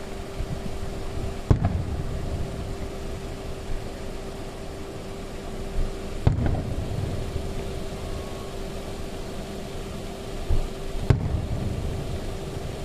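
Aerial firework shells bursting at a distance: three sharp bangs about five seconds apart, each followed by a low rumbling echo, over a steady hum.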